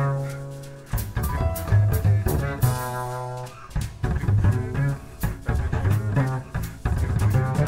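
Instrumental background music with a bass line and a regular drum beat.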